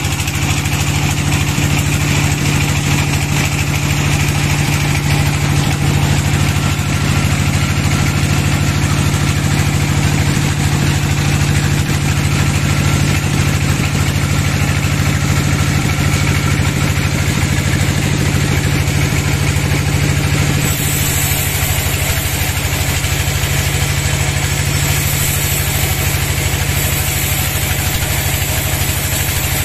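Sawmill band saw running steadily, a continuous low machine hum. About two-thirds of the way through the sound shifts: the low hum thins slightly and a higher hiss comes in.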